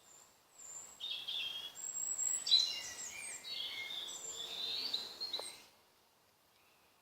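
Dusk chorus of several woodland songbirds singing at once, overlapping high whistled and warbling phrases. It cuts off abruptly about a second before the end.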